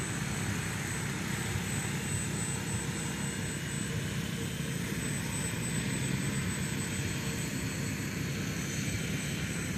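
Radio-controlled model helicopter in flight, its spinning rotor and motor making a steady whirring buzz with a constant thin high whine.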